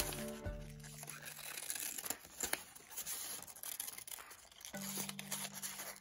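Scissors snipping through folded construction paper, with the paper rustling and crinkling as it is turned. Soft background music plays a held chord in the first second or so and again near the end.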